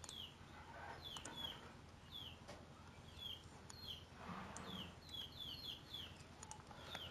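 A bird chirping faintly and repeatedly, short high chirps that fall in pitch, about two a second, with a few faint clicks among them.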